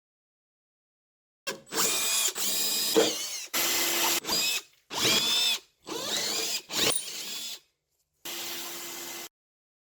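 Power drill running in about six short bursts, its motor pitch sagging and recovering under load.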